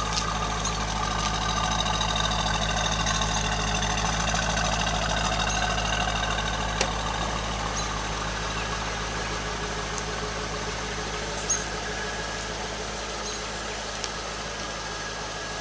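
A 2003 Corvette's 5.7-litre aluminium V8 idling steadily, with a couple of short clicks in the middle.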